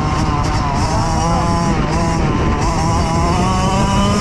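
Kawasaki KX85 two-stroke dirt bike engine running hard at speed, its pitch rising and dipping a little with the throttle. Heavy wind rumble on the helmet-camera microphone.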